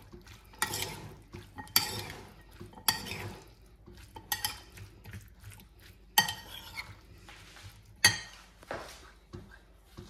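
Metal utensil stirring chickpea and potato chaat in a ceramic bowl: irregular clinks and scrapes against the bowl, with a handful of sharper clinks standing out.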